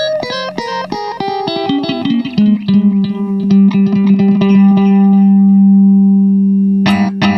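Electric guitar played through a Keeley Halo Core delay pedal: a quick run of picked notes with their echoes trailing behind, then one low note held for several seconds, and sharp choppy chords near the end.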